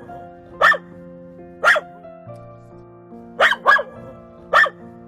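A dog barking, five short sharp barks spread across a few seconds, two of them close together, over steady background music.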